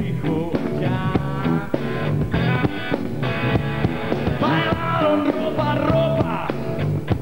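Rock trio of electric guitar, bass guitar and drum kit playing a rock song, with a man singing the lead vocal.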